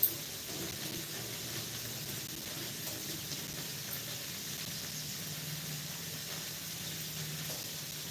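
Oil sizzling steadily in a frying pan, an even hiss with a faint low hum beneath it. A sharp click or knock right at the start is the loudest sound.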